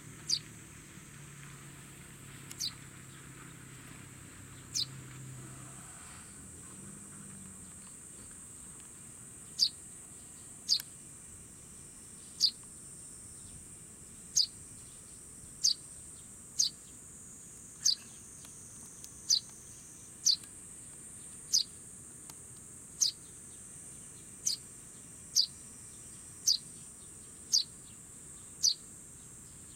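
Fledgling Eurasian tree sparrow calling for its parent: short, sharp, downward-slurred chirps, a few spread out at first, then about one a second from about ten seconds in. A steady high-pitched insect drone runs underneath.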